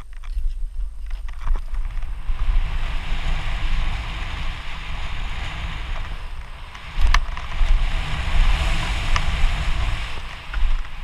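Wind buffeting a helmet-mounted camera's microphone and mountain bike tyres rolling fast over a dirt trail during a downhill run: a low rumble with a rushing hiss that builds after about two seconds. Two sharp clacks from the bike jolting over the ground come about seven and nine seconds in.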